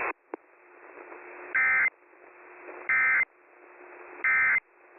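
Emergency Alert System end-of-message data burst, sent three times about a second apart: short warbling two-tone digital chirps over a faint hiss, heard through a band-limited radio feed. It marks the end of the severe thunderstorm warning broadcast.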